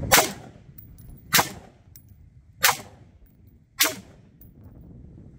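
Four single shots from a short semi-automatic carbine, fired at an even pace about a second and a quarter apart.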